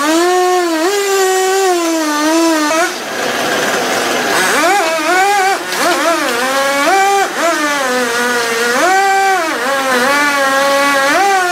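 Chainsaw engine running at high revs as it cuts, its pitch dropping and climbing back again and again over a few seconds. About three seconds in there is a brief stretch of rougher noise.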